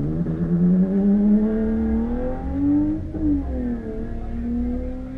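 A car engine accelerating hard, its pitch climbing steadily for about three seconds, then dropping slightly and holding: a car running the autocross course, heard from inside a parked car.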